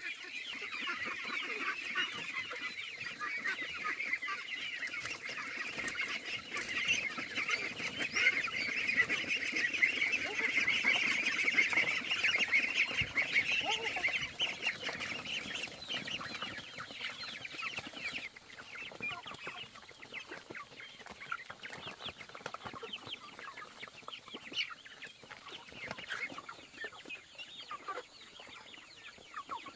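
A flock of young ducks and chicks peeping and chirping together as they crowd in to feed on scattered grain, a dense chorus that is loudest in the first half and thins out after about 18 seconds.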